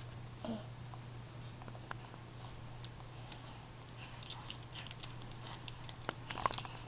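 Faint scattered clicks and small rustles of a baby handling and mouthing plastic rings and fabric toys on a play gym mat, busier in the second half, over a steady low hum.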